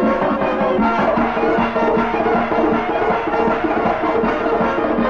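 Caucasian folk dance music with a steady, driving percussive beat of drum and hand-clapping under the melody.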